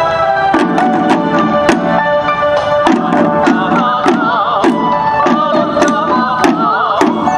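Chinese waist drums (yaogu) beaten together in a steady beat, starting about half a second in, over music with sustained chords and, later, a wavering melody line.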